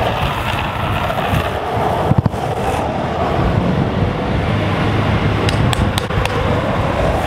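Longboard wheels rolling fast on asphalt, a steady roar mixed with wind rushing over the microphone. There is a knock about two seconds in and a few sharp clicks near the end.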